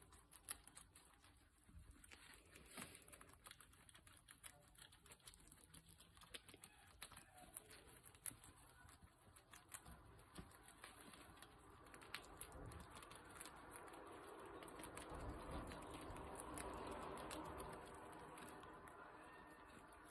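A guinea pig chewing fresh leafy greens: a faint, irregular run of small crisp clicks and crunches. A soft rustling noise swells through the second half.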